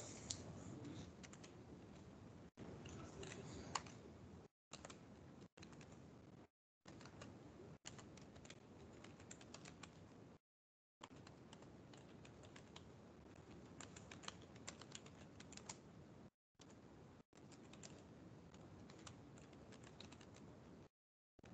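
Faint typing on a computer keyboard, irregular key clicks, heard through a video-call microphone whose noise suppression cuts the sound out completely several times for a fraction of a second.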